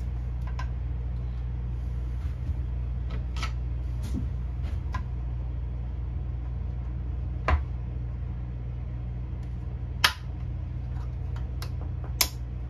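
Light clicks and taps from hands handling a plastic fiber-optic splice tray and fibers, the sharpest about seven and a half and ten seconds in, over a steady low mechanical hum.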